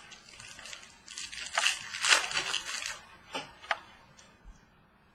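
Rustling and crinkling of a trading card pack wrapper and cards being handled, loudest between about one and three seconds in, followed by a few light clicks.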